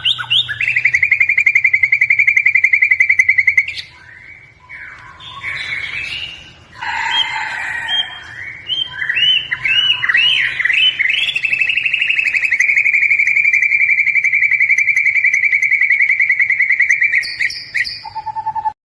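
Songbird singing: a fast, even trill for a few seconds, then a varied run of quick rising and falling notes, then a long fast trill of about five seconds. The song cuts off abruptly near the end.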